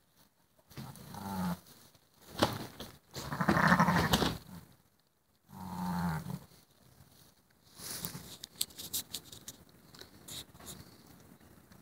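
Sheep bleating around a newborn lamb: several separate calls, the loudest about four seconds in, followed by rustling in the straw bedding.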